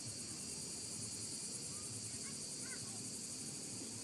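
Steady high-pitched buzz of an outdoor insect chorus, with a few faint short chirps about two seconds in.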